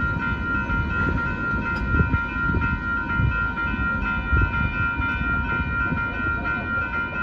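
Railroad crossing warning bell ringing steadily as the crossing gates rise: the train has cleared the crossing. A loud low rumble runs underneath.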